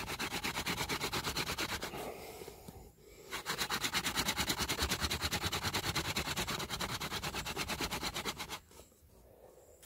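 Hand-drill fire by friction: a hazel spindle twirled back and forth between the palms, grinding in the socket of a dry bay laurel hearth board with a rapid, even rasping. It breaks off for about a second a little after two seconds in, resumes, and stops about eight and a half seconds in. The grinding makes the dark wood dust that collects in the notch to form an ember.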